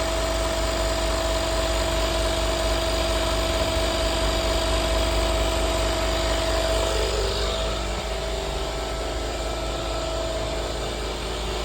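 Air compressor running steadily, inflating a flat car tyre, with a steady hum that shifts slightly in tone about seven seconds in.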